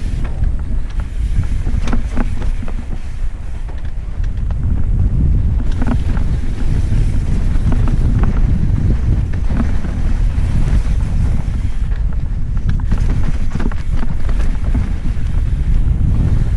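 Wind buffeting the microphone as a mountain bike is ridden fast downhill on a dirt trail, under a steady low rumble, with frequent irregular clicks and rattles from the bike over rough ground.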